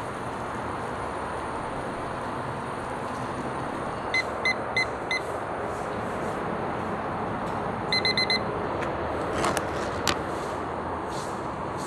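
Digital kitchen timer beeping: four evenly spaced beeps about four seconds in, then a quick run of four beeps about eight seconds in, the timer going off, over a steady background hiss. About ten seconds in, a few sharp crackles as the foil lid is peeled off the cup.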